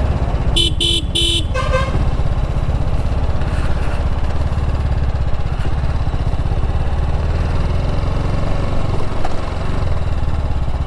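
TVS Apache RR310 motorcycle riding at a steady pace: its single-cylinder engine runs with a steady low rumble of engine and wind. About half a second in, a vehicle horn gives three quick beeps, followed by a fainter short tone.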